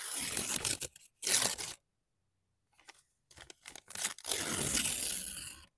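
Paper receipt torn by hand close to the microphone: two short rips in the first two seconds, a pause, then a longer tearing rip near the end.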